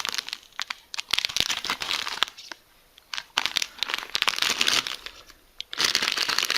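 Plastic MRE accessory packet crinkling as it is handled and opened, in four bursts of crackling with short pauses between them.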